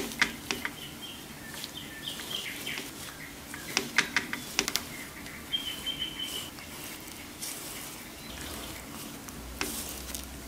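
Flat pastry brush dabbing and stroking syrup onto the sides of a cake, a soft brushing hiss broken by sharp clicks and taps, most of them in the first second and around four seconds in. Small birds chirp faintly in the background, one with a short trill a little past halfway.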